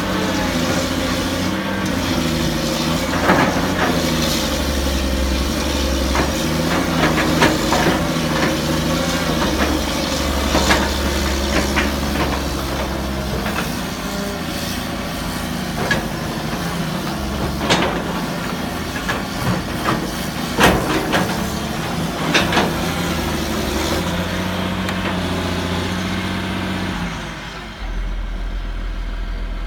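CAT excavator's diesel engine running under load during a test dig after a hydraulic repair, its pitch dipping and recovering as the hydraulics work, with scattered knocks and clanks. Near the end the engine note drops away, leaving a low steady hum.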